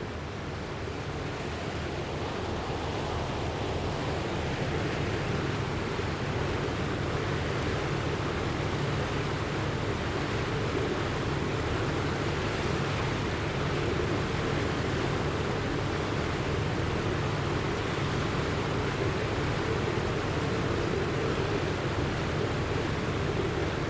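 Steady rushing, surging water sound, like a flood or heavy surf, that swells a little over the first few seconds and then holds even.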